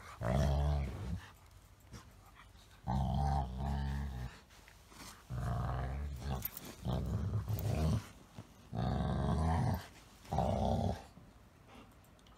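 Golden retriever growling in play-fighting with a small dog: about six low, drawn-out growl-like vocalisations, each around a second long, with short pauses between.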